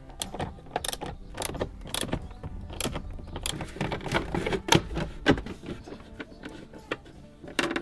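Irregular clicks, knocks and rattles of a small ratchet and hand tools against plastic trim as a car's glove box is fitted into the dashboard and screwed in.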